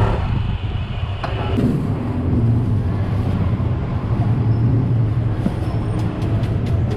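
Street traffic: a steady low rumble of passing vehicles, with a few light ticks near the end.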